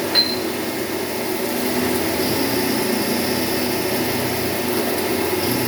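CNC machine running with a steady mechanical hum and hiss, with one short sharp click a moment in.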